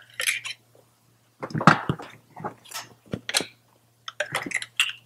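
Ignition coils being pushed down by hand into the spark plug wells of a VW 2.0T TSI engine: a series of short, irregular rubbery squeaks, scuffs and plastic clicks as the coil boots seat over the plugs.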